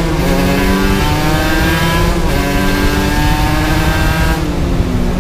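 Aprilia RS 125 two-stroke single-cylinder engine heard onboard, accelerating with its pitch climbing, with two brief breaks about two and four and a half seconds in, over wind rush.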